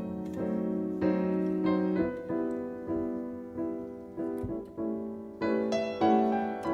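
Solo piano music, notes struck one after another, each ringing and fading.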